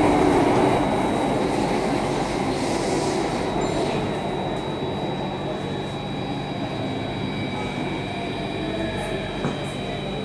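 Cabin noise of a driverless Circle Line MRT train running through a tunnel, a dense rumble that slowly fades as the train slows for the next station. A thin steady high tone runs through it, and a faint motor whine shows near the end.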